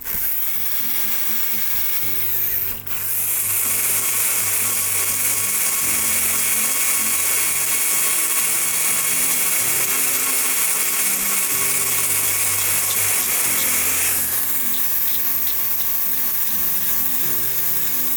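A power tool running at a steady high whine, with a brief drop about three seconds in and a change in its tone about fourteen seconds in. Background music plays underneath.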